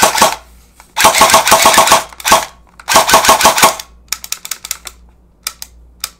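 Electric airsoft AK, run on a 9.6 V nunchuck battery, firing fast strings of semi-automatic shots as the trigger is spammed, in several bursts about a second long. After about four seconds only faint scattered clicks remain: the trigger has locked up, which the owner puts down to too little voltage for a stiff spring.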